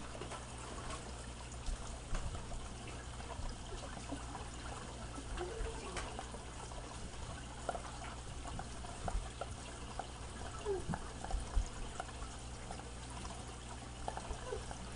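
Water sloshing in sealed fish shipping bags and plastic bagging crinkling as the bags are lifted out of a packed box, with many small light clicks and rustles.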